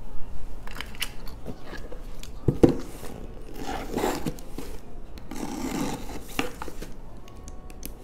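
Handling knocks on a cardboard parcel, the loudest a single knock about a third of the way in, then a small box cutter scraping through the packing tape along the box's seam in two strokes.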